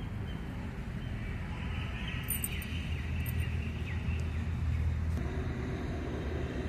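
Outdoor park ambience: a steady low rumble of distant traffic, with a few faint bird chirps.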